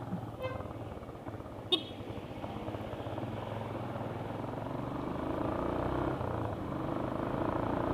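Motorcycle engine running steadily under way, getting slightly louder after about five seconds, with one short sharp sound about two seconds in.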